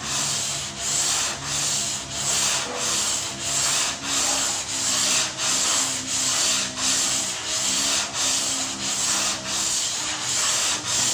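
Hand sanding of body filler on a car door, sandpaper on a sanding block scraping back and forth in quick, even strokes, about two a second.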